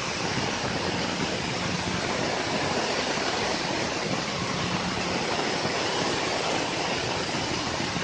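CNC 6040 router's spindle milling a round hole in an aluminium plate with a small end mill: a steady, dense cutting noise.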